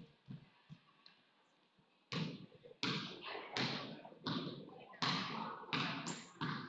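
A basketball bounced on a hardwood gym floor at a slow, even pace, about one bounce every 0.7 s starting about two seconds in, each bounce echoing around the gym: a free-throw shooter's dribble before the shot.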